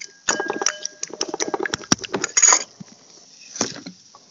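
Eggs being whisked in a bowl: quick, rapid clinking strokes of the utensil against the bowl's side, the first ones leaving a faint ring. The strokes stop about two-thirds of the way through, with one more short stroke near the end.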